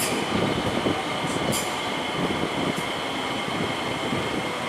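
Old-generation SMRT electric train rolling along the elevated track through the station: a steady rumble of wheels and running gear with a thin, steady high whine on top, and brief hisses about a second and a half in and again near three seconds.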